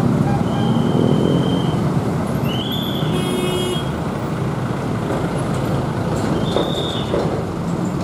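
KAI Commuter electric train running toward the listener on the track: a steady rumble of wheels and motors, with a few short high tones laid over it.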